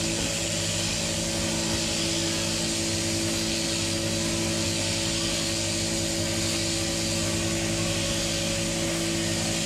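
Sheep-shearing machinery running steadily: an even mechanical hum of several steady tones under a constant hiss.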